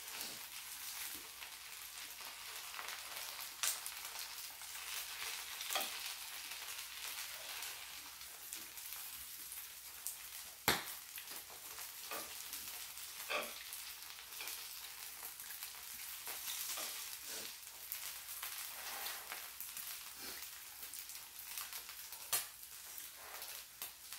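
Pajeon (a Korean squid and green-onion pancake) sizzling in oil on an electric griddle, a steady hiss broken by short clicks and scrapes of chopsticks against the pan. The sharpest click comes about halfway through.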